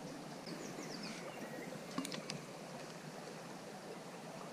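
Small stream running over shallow riffles, a steady wash of water, with a bird's quick run of falling chirps about a second in and two sharp clicks about two seconds in.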